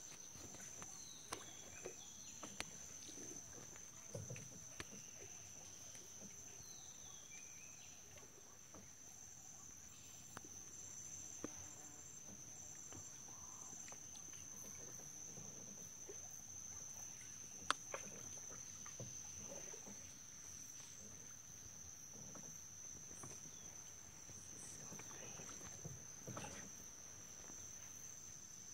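Steady high-pitched chorus of insects holding one unbroken tone, with a few faint clicks and knocks scattered through it, the sharpest about 18 seconds in.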